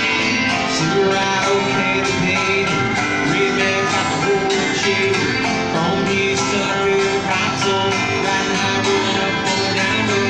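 Acoustic guitar strummed in a steady country rhythm during an instrumental passage of a live song.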